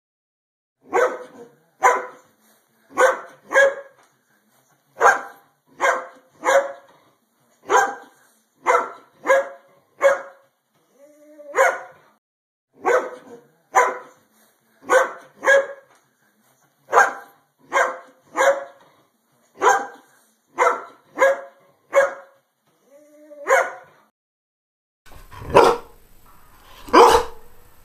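Greyhound barking repeatedly, often two barks close together, with a short rising whine twice along the way. Near the end louder barks come over a background hiss.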